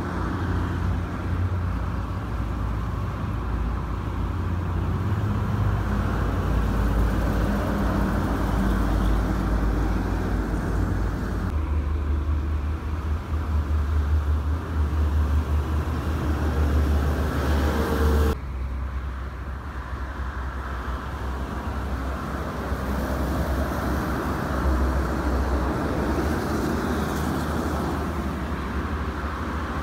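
Steady toll-road traffic: trucks, buses and cars passing at speed, with a low engine rumble and tyre noise. The sound changes abruptly about twelve and eighteen seconds in.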